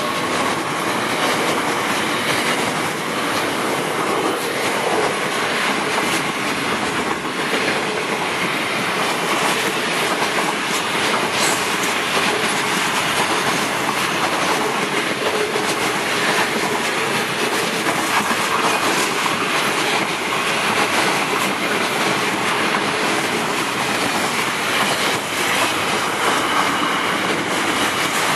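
Train running along the track: a steady rumble of wheels on rail with the clickety-clack of rail joints.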